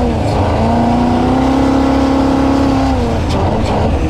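Junkyard 5.3-litre LS V8 in a jet boat, running through 8-into-1 headers under way. The revs climb briefly, hold steady, then drop back about three seconds in, over the rush of water and wind.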